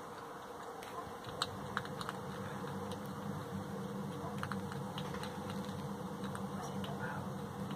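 Hedgehog crunching dry cat biscuits from a plastic bowl: scattered small irregular clicks over a steady low background hum.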